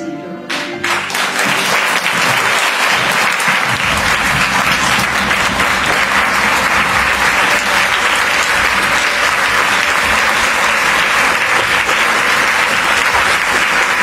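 An audience of many people clapping steadily, breaking out about half a second in.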